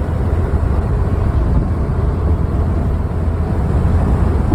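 Steady low rumble and rushing noise of a vehicle driving along the road in strong wind.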